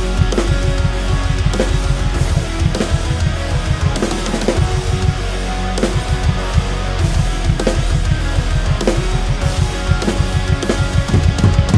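Rock drum kit (PDP birch shells, Pork Pie snare, DW 7000 double pedal) played along to a heavy rock song with guitar. Fast, dense kick-drum strokes run under a snare hit about every second, with crash and hi-hat cymbals on top.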